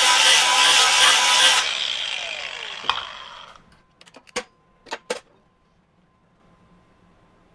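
Hercules HCB61P 20V brushless angle grinder with a ceramic flap disc grinding a bevel on 1/4-inch steel plate, then let off and spinning down with a falling whine over about two seconds. A few sharp metallic clicks follow as locking pliers are unclamped from the plate.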